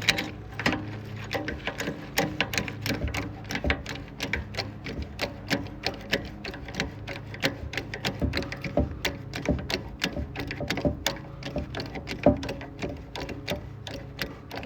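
Hand-pumped hydraulic bottle jack being worked, clicking roughly three times a second as it loads a flare-nut wrench against a seized oxygen sensor. A steady low hum runs underneath.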